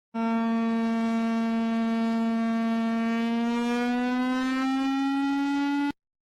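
Siren sounding one buzzy tone with many overtones that climbs slowly in pitch, then cuts off abruptly about six seconds in.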